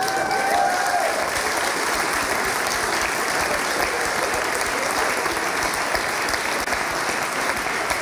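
A large theatre audience applauding steadily, with some laughter mixed in near the start.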